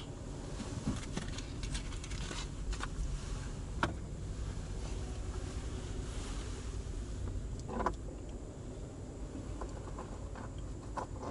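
Small taps, clicks and rustles of things being handled inside a parked car's cabin, over a low steady hum, with a sharper click about four seconds in and a louder knock near eight seconds.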